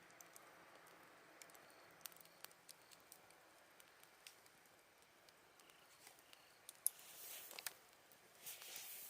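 Campfire crackling faintly, with scattered sharp pops and snaps, over a faint chorus of autumn insects with a few short chirps. Near the end the fire hisses louder twice.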